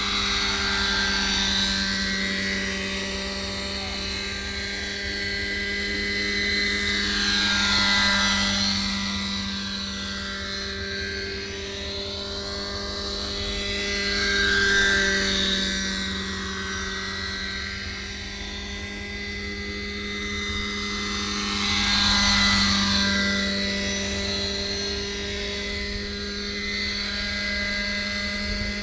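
MD 500-series light turbine helicopter hovering and manoeuvring low: a steady drone of turbine and rotor with a high whine, swelling louder about every seven seconds as it comes closer, the whine sweeping up and down in a phasing way.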